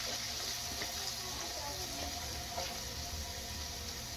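Skinless salmon fillet frying in a pan: a steady sizzle with small crackles.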